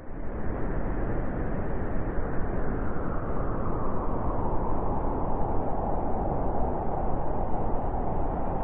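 Steady white-noise sleep track with a deep rushing hiss and little treble. It starts abruptly right at the beginning, after a brief silence.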